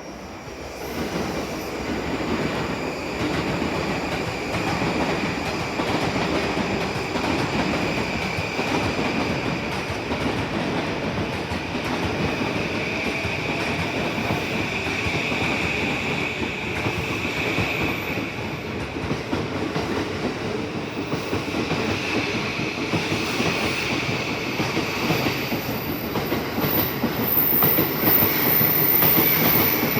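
A train running on the tracks past the platform: a steady, loud rumble and clatter of wheels on rail, with a high wavering wheel squeal over it.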